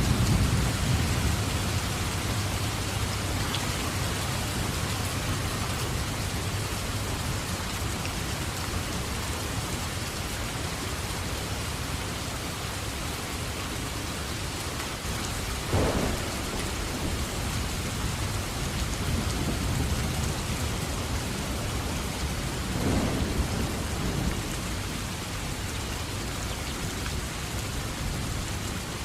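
Steady heavy rain with thunder. A low rumble rolls near the start, and two sharper claps come about halfway through and again about two-thirds of the way in.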